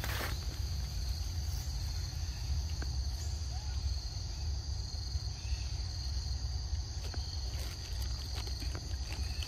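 Insects droning steadily at a high pitch, over a constant low rumble, with a few faint clicks.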